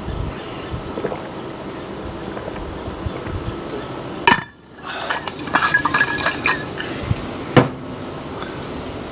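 Small hard objects clinking and rattling over a steady background noise: a sharp click about four seconds in, a scatter of light clinks, then a single sharp knock near the end.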